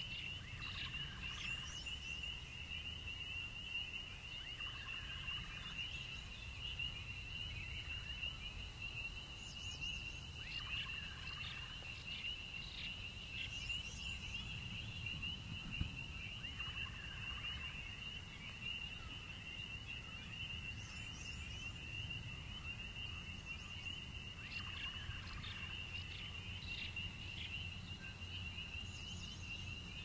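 Night ambience of crickets trilling steadily in chorus, with frogs croaking in short bouts every few seconds and a low rumble underneath. One brief thump about halfway through.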